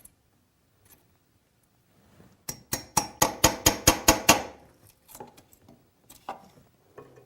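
Rapid light hammer taps on the small end of a steel Lie-Nielsen drawer lock chisel, about a dozen quick strikes in two seconds, chopping out waste from a drawer lock mortise, followed by a few fainter ticks.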